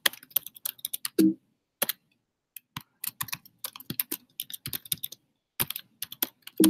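Computer keyboard being typed on: quick irregular runs of key clicks, with a short pause about two seconds in and a few heavier, lower-sounding key strikes.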